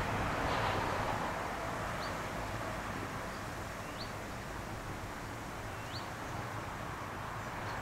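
Distant ET22-class electric locomotive hauling coal wagons as it approaches: a steady low rumble and hiss. A bird repeats a short rising chirp about every two seconds over it.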